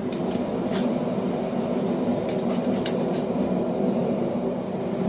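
A forge running steadily, with a few light clinks of steel hand tools being handled.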